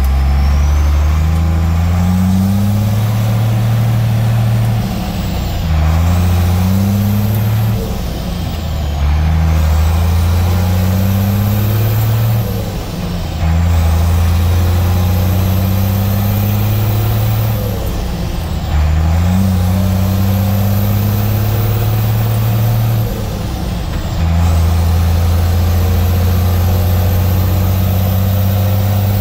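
International Loadstar's straight-piped DT466 turbo diesel pulling hard from inside the cab as the truck accelerates up through the gears. The engine note climbs and drops back at each of several upshifts, with the turbo whistle rising and falling along with it.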